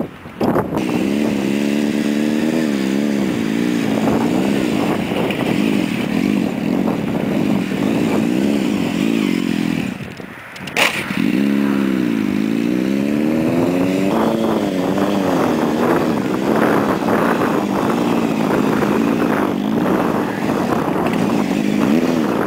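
Honda CBR600F4i sport bike's inline-four engine revving up and down, its pitch rising and falling with the throttle through wheelies and circles. The sound breaks off twice with a sharp click, near the start and about halfway.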